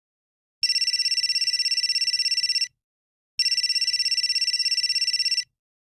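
Cell phone ringing: two electronic trilled rings of about two seconds each, separated by a short pause, each a high tone warbling rapidly.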